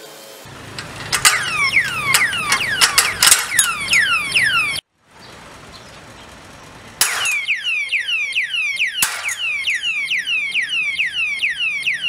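Built-in siren of an alarm padlock sounding, a fast run of falling electronic whoops set off by hammer knocks on the lock body. The siren cuts off about five seconds in, and after a short gap a hard knock sets it wailing again, with another knock a couple of seconds later.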